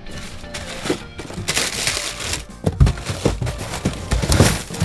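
Hands rummaging through cardboard boxes of plastic-wrapped ice cream bars in a chest freezer: a dense run of rustling, crackling and knocking of wrappers and cardboard, busiest from about halfway in. Background music plays underneath.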